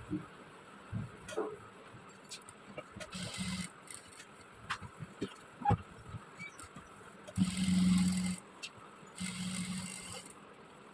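Sewing machine running in three short runs, the longest about a second, top-stitching along a collar, with a few light clicks between runs.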